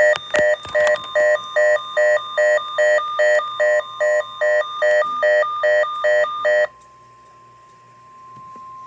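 A weather radio's alert alarm beeping rapidly, about three beeps a second, over NOAA Weather Radio's steady warning alarm tone, signalling an incoming tornado watch. The beeping stops suddenly about two-thirds of the way through, and the steady warning tone carries on alone, more quietly.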